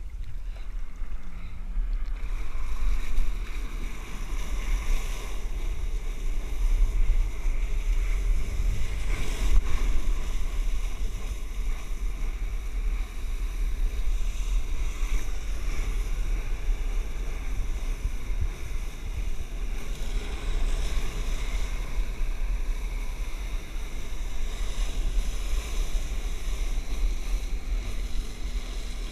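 Flyboard water jets blasting spray down onto the sea, a steady rush with heavy wind buffeting on the microphone.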